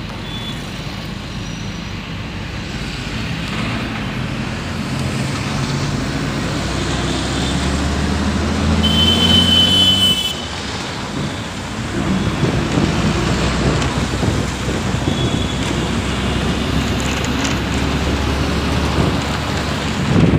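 A motor vehicle heard from inside as it drives through city traffic. Its engine hum rises in pitch as it speeds up, drops away suddenly about ten seconds in, then builds again under road and wind noise. A brief high-pitched tone sounds just before the drop.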